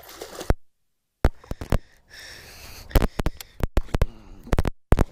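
Microphone interference: a run of sharp pops and crackles, with the sound cutting out to dead silence twice.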